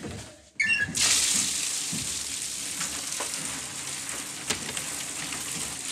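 Water suddenly gushing at full force from opened bathroom taps, a steady loud hiss that starts with a short squeal just over half a second in, as the bathroom is flooded.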